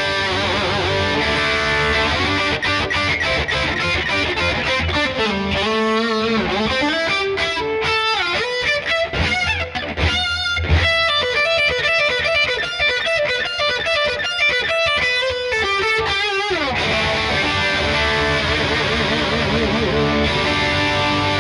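Washburn N4 electric guitar played through distortion. Riffs and chords open and close the passage. Between about six and sixteen seconds in come fast lead runs and string bends, ending in a falling glide.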